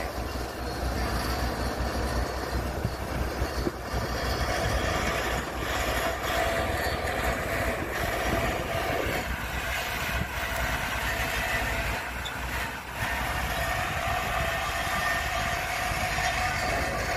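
Diesel engine of a Komatsu PC120 excavator running steadily under load while the grab works, with a few short knocks.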